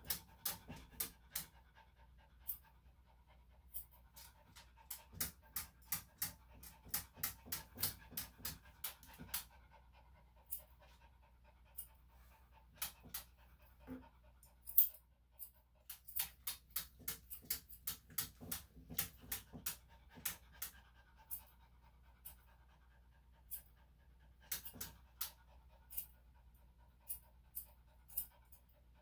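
Small Maltese/Shih-Tzu dog panting, with runs of quick, sharp clicks as its matted feet are groomed.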